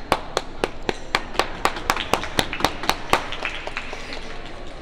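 Hands clapping in applause for a piano piece, a steady run of sharp claps at about four a second, close and loud, then a few fainter claps dying away near the end.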